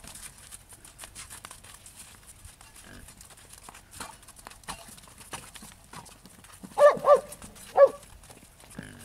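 Horses' hooves clopping faintly and unevenly on the frozen pond, with a dog barking three times near the end: two quick barks, then one more.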